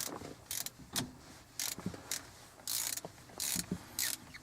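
Hand ratchet with a 6 mm hex bit socket being swung back and forth on a shifter bolt, its pawl clicking in short rasping bursts on each back stroke, about seven times.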